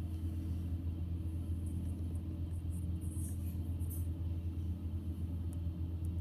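Wood chipper's engine running steadily at a constant speed, a low even hum with no revving, and a few faint high ticks over it.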